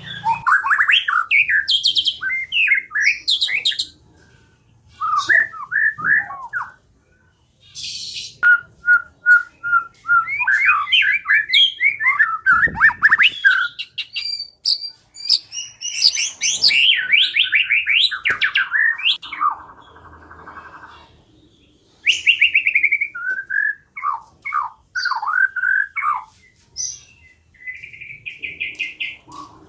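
White-rumped shama singing a loud, varied song of whistled phrases, quick trills and rapid runs of repeated notes, broken by a few short pauses, with a buzzy stretch about two-thirds of the way in.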